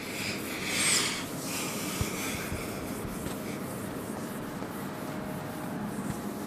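Whiteboard being wiped with a duster: a rubbing swish, loudest about a second in, then softer wiping.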